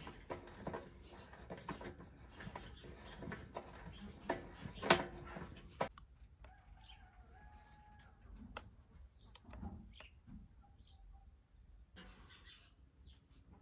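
Hens clucking and small birds chirping, with a run of sharp clicks and knocks in the first half, the loudest about five seconds in.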